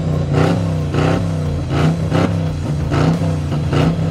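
Vehicle engine revved over and over in quick throttle blips, about two a second.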